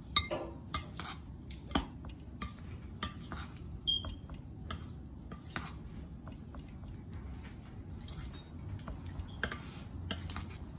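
Metal spoon stirring and folding a thick batter of grated malanga in a glass mixing bowl, with irregular clinks and scrapes of the spoon against the glass.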